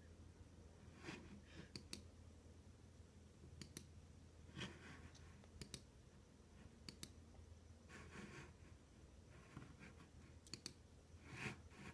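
Faint computer mouse clicks, sparse and irregular, several in quick pairs, with a few duller handling rubs between them over a low hum.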